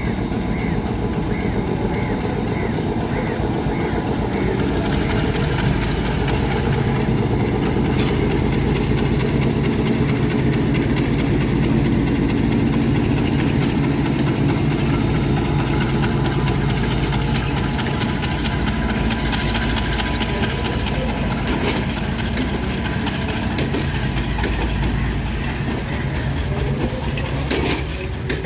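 Class M10A diesel locomotive's engine running steadily with a low throb.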